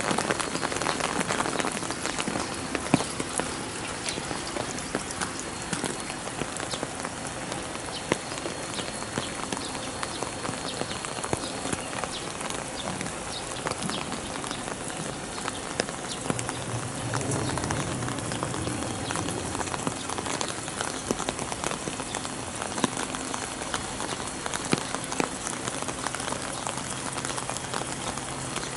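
Steady rain falling and pattering on surfaces, with many close drops ticking. A low hum comes in about sixteen seconds in and fades a few seconds later.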